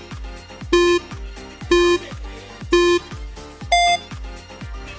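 Interval-timer countdown beeps: three short beeps a second apart, then one higher-pitched beep as the work interval ends and rest begins. Underneath plays electronic dance music with a steady kick-drum beat.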